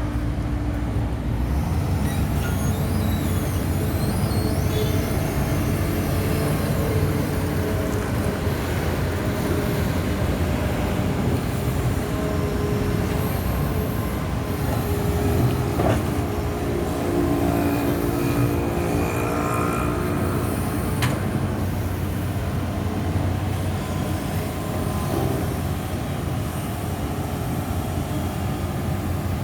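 Diesel heavy construction machinery running steadily, engine drone with clanks and short high squeals partway through.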